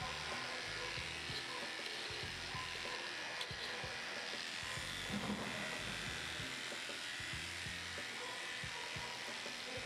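Electric dog clippers running steadily as they shave through a matted coat, with background music playing.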